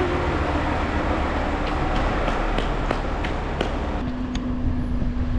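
Steady low rumble of a vehicle in motion. A quick run of light clicks comes between about two and four seconds in, and a steady hum starts about four seconds in.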